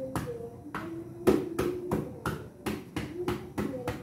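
Stainless steel pan lid rattling against the rim of the pan, tapping about three times a second in an uneven rhythm with a short metallic ring after each tap, as steam from the boiling paksiw lifts it.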